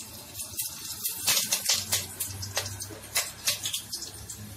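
Green chillies sizzling and crackling in hot ghee and oil in a metal pan, with quick irregular pops over a steady hiss.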